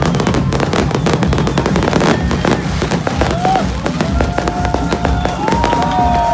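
New Year fireworks going off in a dense barrage of rapid crackles and bangs. About three seconds in, several whistling tones join, gliding up and then holding.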